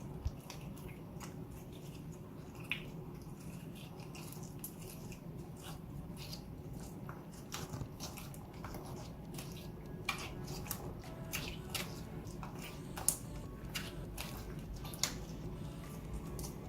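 Hands kneading and stretching glitter slime: irregular sticky clicks and small pops, coming more often in the second half, over a steady low background hum.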